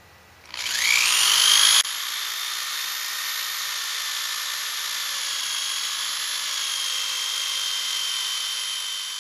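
Electric drill with a 3/8-inch bit boring through marine board. About half a second in the motor spins up with a quickly rising whine. It is loudest for the first second or so, then runs on as a steady high whine.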